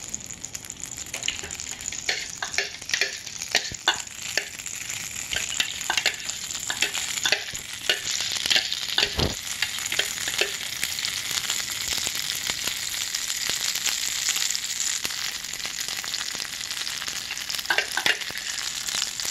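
A piece of butter melting in a hot frying pan, sizzling with frequent sharp crackles and pops. The sizzle swells around the middle, with one louder pop about nine seconds in.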